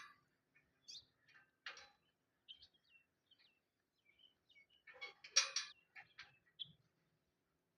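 Small birds chirping in short, scattered calls, with a louder burst of calls about five seconds in.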